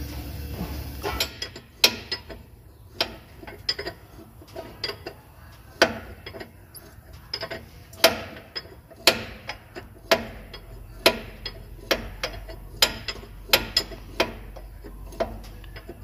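A ratchet wrench turning a nut at the lower mount of a truck's air suspension bag: sharp metallic clicks, a loud one about once a second with lighter ticks between.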